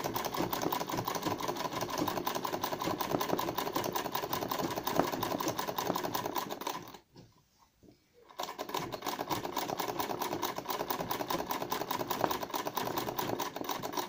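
Black straight-stitch sewing machine stitching fast in free-motion embroidery, a rapid, even run of needle strokes. It stops about seven seconds in for a second and a half, then starts again.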